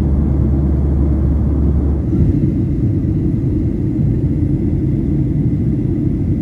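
Steady low rumble of a moving vehicle heard from inside, with a deeper hum that drops out about two seconds in.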